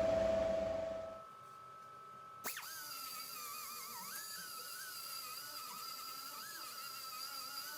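The steady hum of a shop fan fades out in the first second. After a click about two and a half seconds in, quiet background music with a wavering high melody begins.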